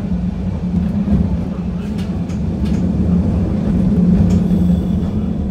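Narrow-gauge (762 mm) electric train of the Sangi Railway Hokusei Line pulling away from a station, heard from inside the cab: a steady low running hum from its motors and wheels, with a few light clicks from the rails.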